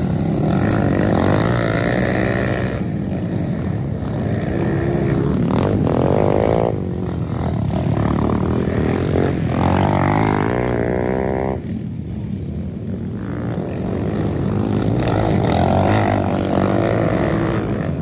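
Several dirt bike engines racing past, revving hard and easing off, their pitch climbing and falling with each throttle change. The sound drops back briefly about two-thirds of the way through, then builds again.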